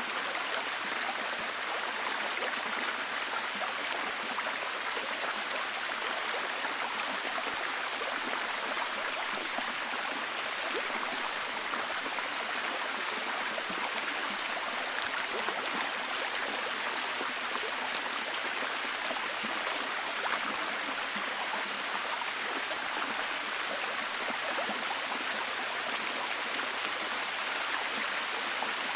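Steady rain in a forest: an even hiss of falling water with a dense patter of fine drop ticks.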